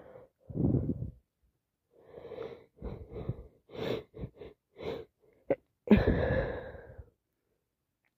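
A woman with a summer cold sneezing. A run of short, catching breaths builds up to a loud sneeze about six seconds in, after an earlier burst near the start.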